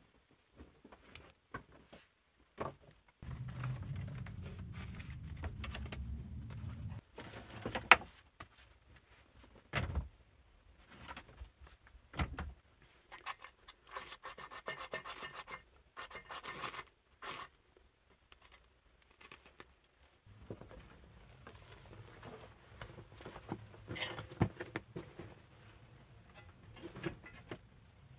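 Hands-on fire lighting: rustling and a few sharp knocks of dry sticks, then, around the middle, a quick run of rasping scrapes as a knife is struck on a ferro rod to throw sparks onto wood shavings. Near the end come faint small cracks as the kindling catches.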